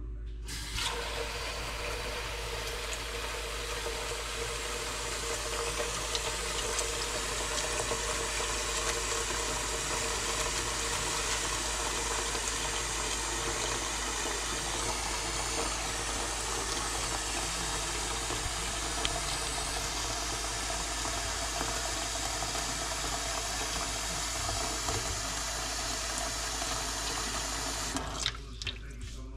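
Kitchen tap running a steady stream of water into a stainless steel pot of dried red kidney beans, filling it; the water cuts off suddenly near the end.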